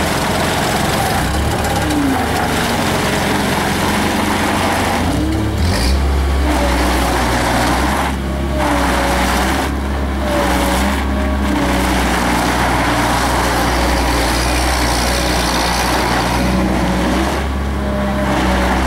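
JCB skid steer loader's engine running hard under load, its note shifting as the machine is driven, heavier from about six seconds in.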